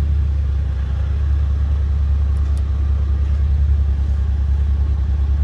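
Audi S5 V6 engine running steadily with the car in gear, a loud, even low rumble that swells slightly partway through.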